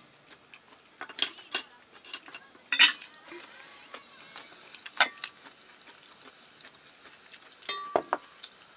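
Dishes and utensils being handled on a table: scattered clinks and knocks, the sharpest about three and five seconds in, with a short ringing clink near the end.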